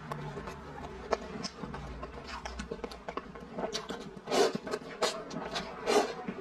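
Instant noodles slurped in from chopsticks: a run of four loud slurps about half a second apart in the second half, after a few faint clicks of chopsticks in the bowl.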